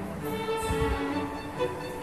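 Background music: a melody carried on bowed strings.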